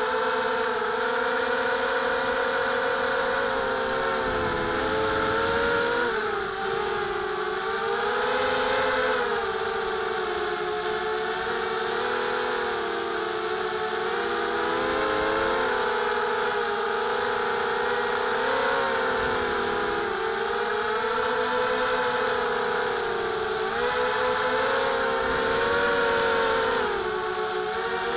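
Brushless motors and propellers of a mini FPV racing quadcopter whining, the pitch rising and falling with the throttle. Heard from the quadcopter's own onboard camera.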